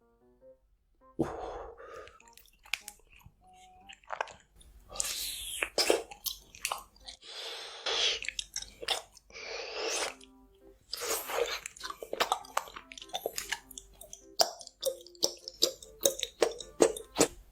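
Close-miked chewing with many sharp, crisp crunches and wet crackles, over faint background music.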